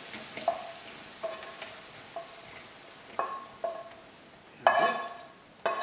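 Fried aubergine cubes scraped out of a hot non-stick frying pan with a wooden spoon: a fading oil sizzle with light scrapes and taps of the spoon on the pan. Near the end come two louder knocks of cookware set down on the hob.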